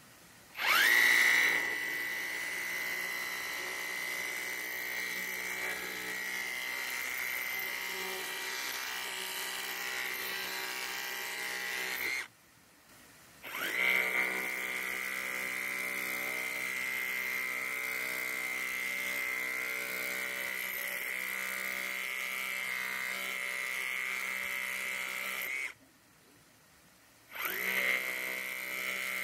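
Waitley YN-5026 18V cordless hammer drill chiselling hard rock with a point chisel. The motor spins up with a rising whine and runs steadily, in three runs with brief stops between; the first two last about twelve seconds each.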